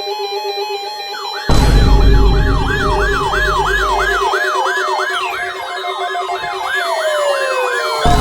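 Electronic yelp siren wailing rapidly up and down, about three cycles a second, with other falling siren sweeps and a heavy bass drone, cutting in suddenly about one and a half seconds in over a steady electronic tone. A second loud bass hit comes near the end.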